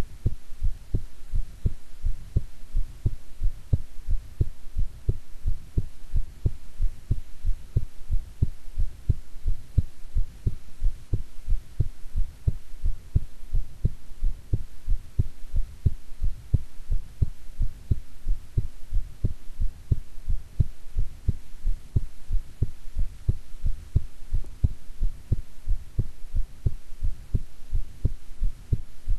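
A woman's heartbeat, heard close up: steady, regular beats, with a faint steady hum underneath.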